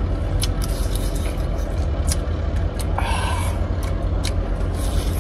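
A cooked shrimp's shell cracking and being peeled by hand: scattered sharp little clicks and crackles, with a brief louder rustle about three seconds in. A steady low rumble runs underneath.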